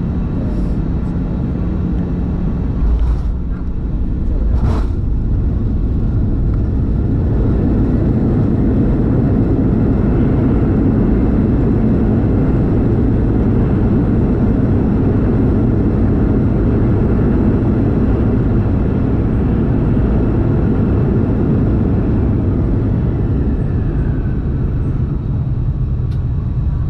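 Airbus A320 engine and airflow noise heard from inside the cabin: a loud, steady low rumble. Two short knocks come a few seconds in, and the noise swells about six to eight seconds in.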